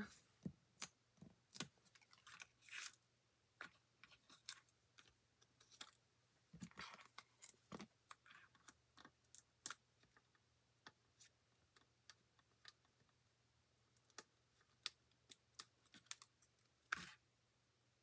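Faint, scattered clicks, taps and brief paper rustles as cardstock pieces are handled and pressed down onto a folded paper card, with one louder click near the end.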